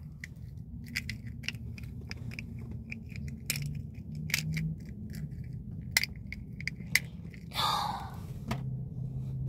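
Small candy wrapper on a PEZ candy pack crinkling and clicking as fingers handle it and work at opening it, with a louder rustle about three quarters of the way through. A faint steady low hum runs underneath.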